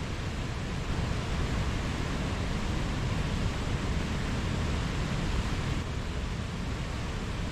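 Mountain stream flowing, a steady rush of water over rocks.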